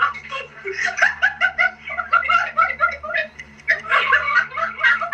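A person laughing hard in quick repeated bursts, with a short break about three seconds in.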